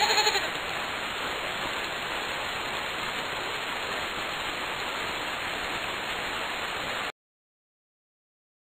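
Steady heavy rain that cuts off suddenly about seven seconds in, leaving silence. At the very start a brief pitched cry sounds over the rain.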